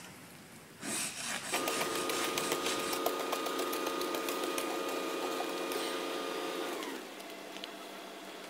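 A compact tractor running on the street: a steady mechanical whine with a rattle of fine clicks that starts suddenly about a second in and drops in pitch and loudness about seven seconds in.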